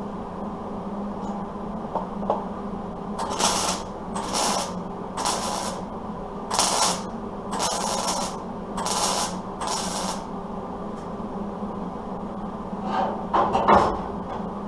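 A power tool cutting rusty truck sheet metal in seven short bursts of about half a second each, over a steady low machine hum. A few sharp clicks and knocks come near the end.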